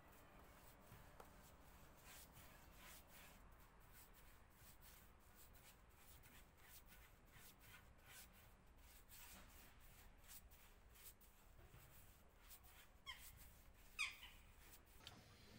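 Faint, irregular swishing strokes of a paintbrush spreading yacht varnish along a wooden plank. Near the end come two short rising squeaks, the second the loudest sound.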